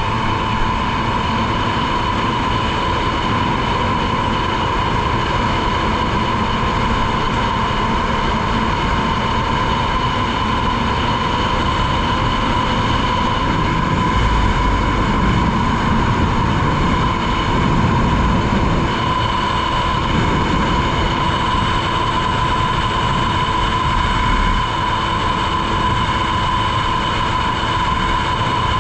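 2003 Polaris Virage personal watercraft running at speed on its newly replaced jet pump: a steady high-pitched whine over a constant rush of noise.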